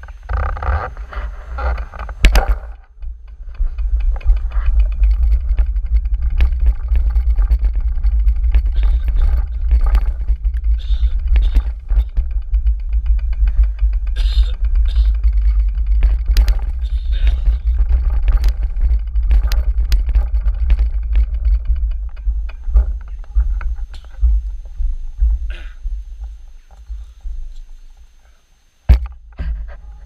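Wind rumbling on the microphone of a handlebar-mounted camera on a moving bicycle, with scattered knocks and rattles from the bike over rough ground. The rumble fades out near the end.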